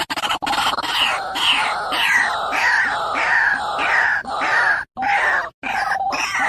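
White-breasted waterhen calling: a loud run of harsh, croaking notes, each sliding down in pitch, about two a second, broken by two brief silences about five seconds in.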